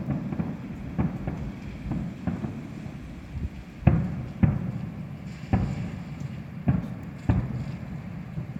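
Fireworks shells bursting: about eight loud bangs at uneven intervals, each trailing off in a low rumble, the loudest near the middle.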